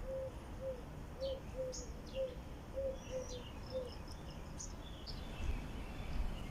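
Sparrows chirping in short, scattered high calls. Under them a low short note repeats about twice a second and stops about four seconds in.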